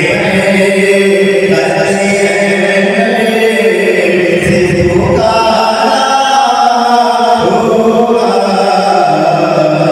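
A man's voice chanting a slow devotional melody into a handheld microphone, holding long notes and moving between them without a break.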